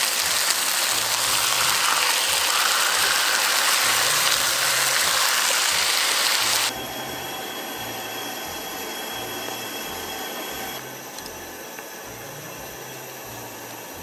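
Marinated tandoori chicken sizzling loudly in an oiled frying pan, a steady hiss that cuts off abruptly about seven seconds in, leaving quieter sound. Soft background music with a repeating bass line runs underneath.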